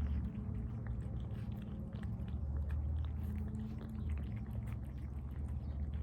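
Cat chewing and biting into tuna from a bowl: a close run of small wet, smacking clicks over a steady low rumble.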